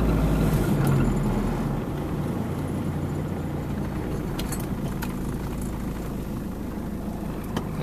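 Truck engine running steadily at rest, a low rumble that eases a little about a second in, with a few faint clicks.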